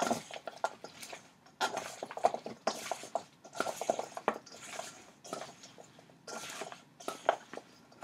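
Oiled Brussels sprouts stirred and tossed with a spatula in a stainless steel mixing bowl: irregular scraping and knocking of the spatula and sprouts against the metal bowl, in bursts with short pauses.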